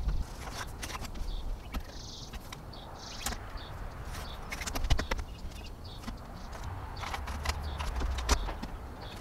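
Scattered light knocks, taps and clicks on wood as a person works along a wooden boat's keel and plywood station molds, with louder knocks about five and eight seconds in.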